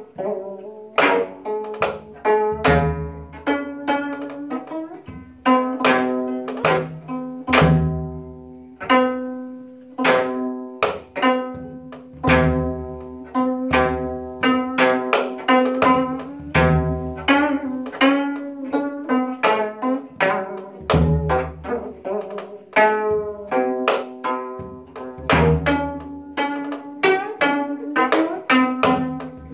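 Gayageum sanjo: a gayageum, the Korean plucked zither, plays a steady stream of plucked notes, some bent and wavering, accompanied by a janggu hourglass drum struck by hand with deep strokes every second or two.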